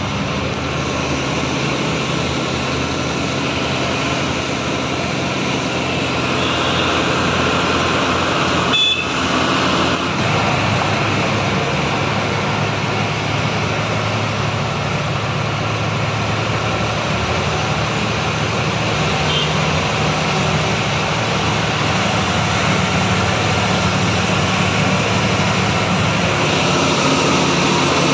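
Truck engine and road noise heard from inside the cab while driving; the engine note changes about ten seconds in. A short sharp click about nine seconds in.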